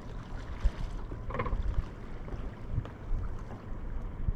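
Wind rumbling on the microphone over open water beside a sea kayak, with light water sounds and a short splash-like sound about a second and a half in.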